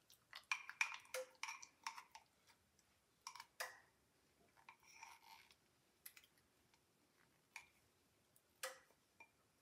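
Faint, scattered clicks and taps of a spatula scraping mayonnaise out of a glass measuring cup into a mixing bowl, busiest in the first two seconds.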